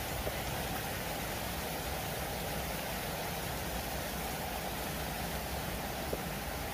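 Shallow forest stream flowing over stones and gravel: a steady rushing hiss with a low rumble underneath.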